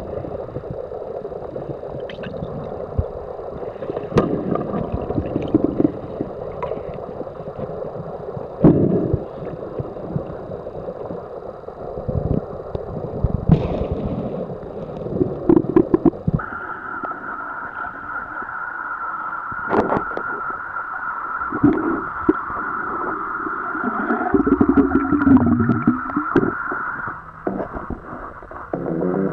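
Underwater audio from a camera submerged in a lake: muffled water noise with scattered knocks and thumps. About halfway through, the sound changes to a steady high whine that holds for about ten seconds, with low gurgling near the end.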